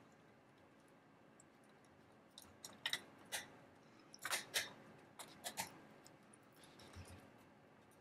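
Small, irregular clicks and taps of a plastic model frame and its wiring being handled, as cables and a panel are pushed into place; they start about two seconds in and come singly and in short clusters, all fairly faint.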